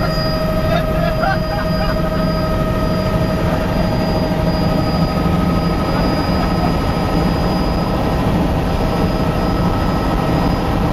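Helicopter heard from inside the cabin in flight: a loud, steady drone of engine and rotor with a thin, even whine over it.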